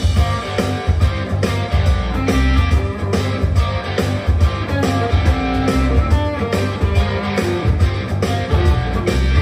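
Firefly FFLG SG-copy electric guitar with two humbucker pickups, plugged in and played over a blues-rock backing track in G minor with a drum kit keeping a steady beat.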